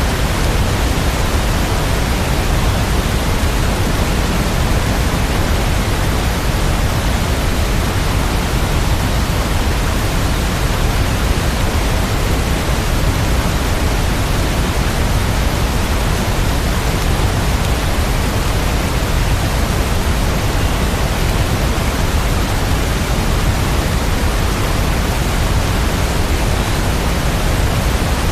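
Steady rain sound: an even, unbroken hiss with no separate drops, thunder or music.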